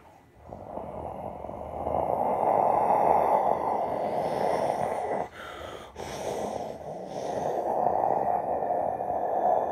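Airbus Beluga's jet engines at takeoff power as it climbs out overhead: a steady, deep roar that builds over the first couple of seconds, dips briefly about five seconds in, then carries on.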